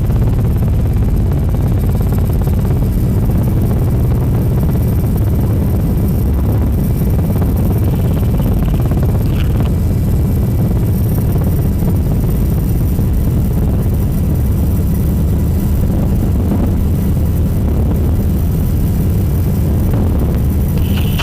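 Helicopter engine and rotor noise as a loud, steady low drone.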